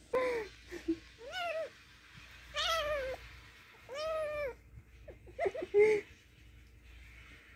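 A kitten meowing, about five short calls in the first six seconds, the last ones clipped and the loudest.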